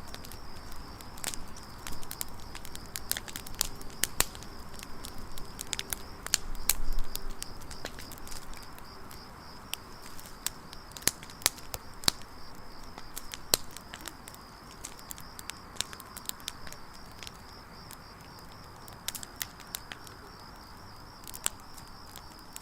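Firewood burning in an open campfire, crackling with irregular sharp pops and a louder surge about seven seconds in, over a faint steady high-pitched whine.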